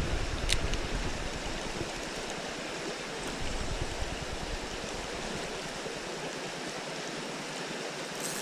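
Flowing creek water, a steady even rush, with one brief click about half a second in.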